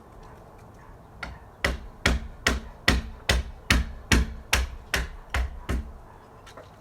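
A run of about eleven sharp, evenly spaced strikes, a little over two a second, starting about a second and a half in after one faint knock.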